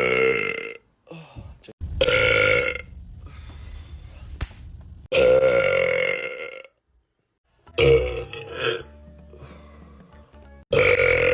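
A run of loud, separate burps from men, one after another: the tail of one at the start, then about four more, at roughly 2, 5, 8 and 11 seconds in, the one around 5 seconds the longest at about a second and a half. Faint background music plays in the gaps between them.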